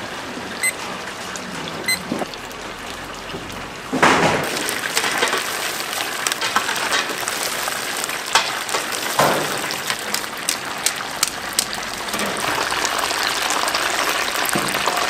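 Boneless chicken pieces deep-frying in a cauldron of hot oil: a steady hissing sizzle full of fine crackles and pops, rising sharply about four seconds in. Two short electronic beeps sound near the start.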